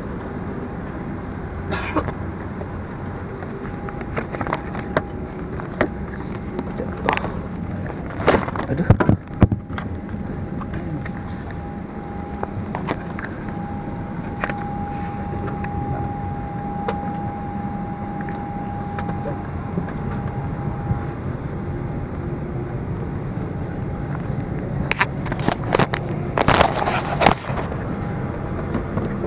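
Airliner cabin during boarding: a steady rushing cabin noise, broken by knocks and clatter of passengers and luggage in the aisle, loudest about eight seconds in and again near the end. A faint steady tone comes and goes in the middle.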